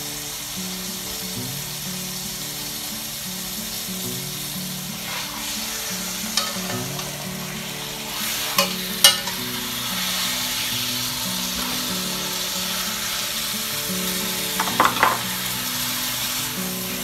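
Beef chuck roast sizzling in hot olive oil in an enameled cast-iron Dutch oven as it browns, with a few sharp clinks of metal tongs against the pot as the roast is turned, around six, nine and fifteen seconds in. Soft background music with sustained notes runs underneath.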